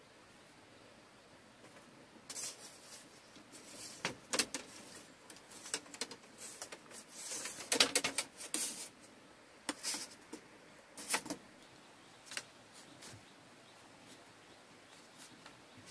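Thin split-bamboo strips clicking, clattering and scraping against each other as they are handled and woven into a flat panel. Scattered light clicks and rustles, busiest and loudest about halfway through.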